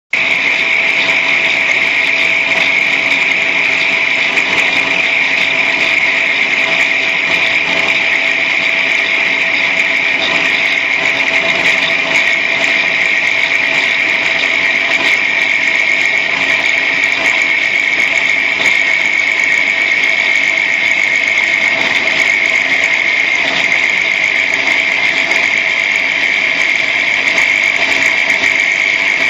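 Angle grinder running continuously with a steady high whine, its disc grinding a spinning workpiece in place of a lathe cutting tool.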